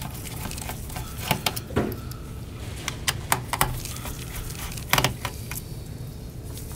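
Small metallic clicks and taps from a Phillips screwdriver working the screws of a laptop's 2.5-inch hard-drive bracket. The clicks come in scattered clusters, the sharpest about five seconds in, over a steady low hum.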